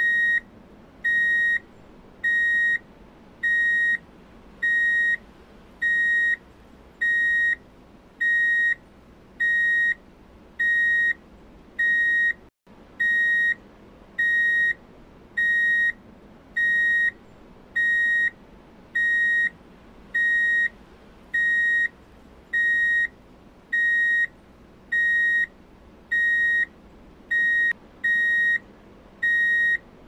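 Electronic beeper sounding one steady high-pitched beep about every 1.2 seconds, in the even rhythm of a reversing alarm, with a brief break a little before halfway.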